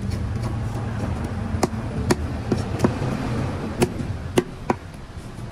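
About seven sharp knocks, irregularly spaced, starting about a second and a half in, over a steady low rumble.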